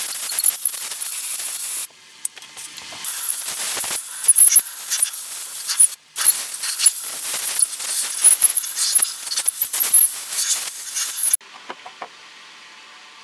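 Aerosol brake cleaner hissing out through its straw in long bursts, with short breaks about two and six seconds in. It stops abruptly near the end, followed by a few faint clicks. It is spraying the engine block's bearing saddles and flange to leave them clean and dry of oil.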